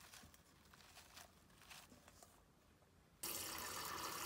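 Faint soft crackling of enoki mushroom clusters being torn apart by hand. About three seconds in, tap water starts running steadily into a steel bowl, and this is the loudest sound.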